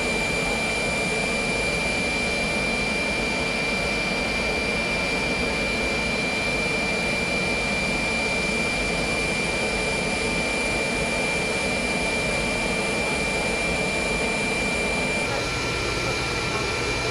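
Steady whine and rush of an aircraft turbine running at the stand, with a constant high-pitched tone over it. The sound changes slightly about fifteen seconds in.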